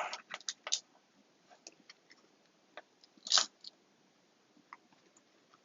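Small scattered clicks and scrapes of a pocket-knife blade turning an M3 screw down into a panel's nut lock, with one louder click about three and a half seconds in.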